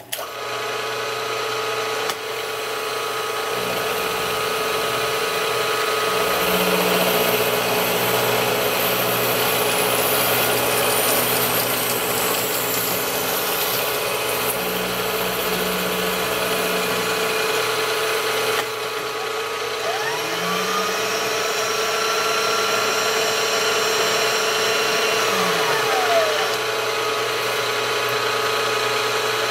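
Milling machine starting abruptly and running with an end mill cutting an aluminum block: a steady whine under the dense noise of the cut. A lower hum comes and goes in the first half, and a few brief rising and falling tones sound about two-thirds of the way through.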